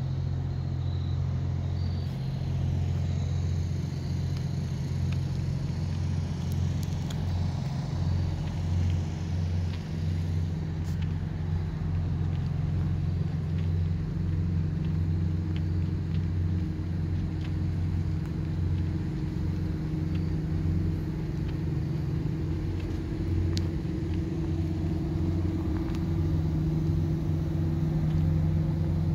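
An engine running steadily with a low hum that holds the same pitch throughout, with a few faint clicks over it.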